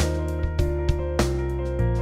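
Background music: steady pitched notes struck on a regular beat, about one accent every 0.6 seconds.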